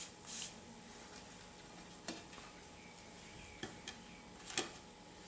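A handful of light taps and clicks from a silicone-tipped utensil against a nonstick pan and plate as grilled bun halves are lifted off, the loudest about four and a half seconds in.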